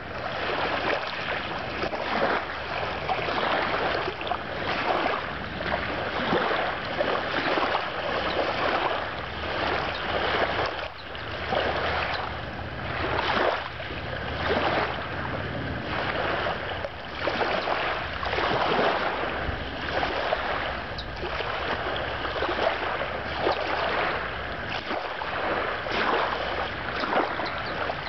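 Small river waves lapping and washing over pebbles and stones at the water's edge, surging in every second or so. A low rumble sits underneath through the middle stretch.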